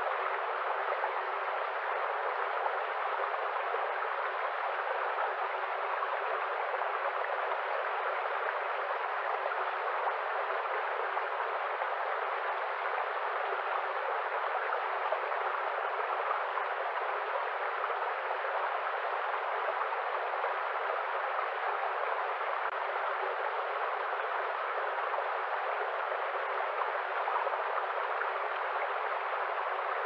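Shallow woodland stream running over rocks, a steady unbroken rush of water.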